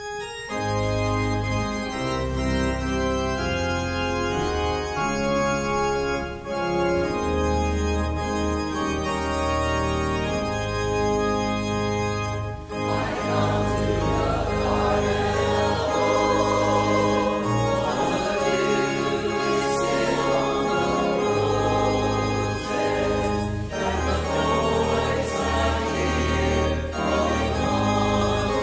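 Church organ playing offertory music, sustained chords over long low pedal bass notes, starting right after the prayer.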